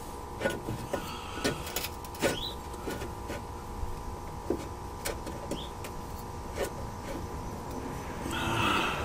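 Scattered metal clinks and knocks of hand tools as a nut is worked onto a bolt on a truck's front suspension, over a steady faint whine. A short scraping rustle comes near the end.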